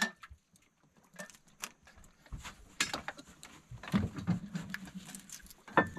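A knife cleaning giant river prawns on a wooden plank: irregular taps, clicks and scraping, with a sharp clink at the start and again near the end. A low hum comes in about four seconds in.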